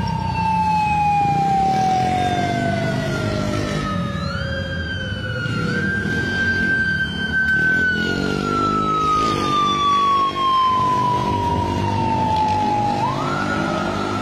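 A police siren wailing: each wail jumps up quickly and then falls slowly in pitch over several seconds, rising again about four seconds in and near the end. Engines of passing traffic run underneath.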